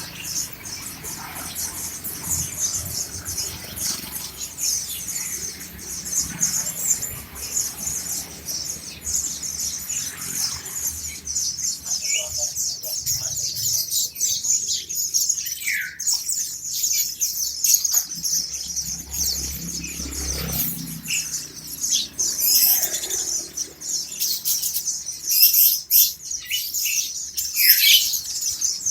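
A crowd of caged white-eyes (pleci, Zosterops buxtoni) chirping together, a dense high twittering that never stops, with louder single calls now and then.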